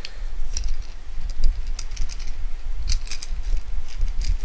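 Light clicks and short rustles from handling a plastic fashion doll and its small fabric shorts, with a cluster of them about three seconds in, over a low handling rumble.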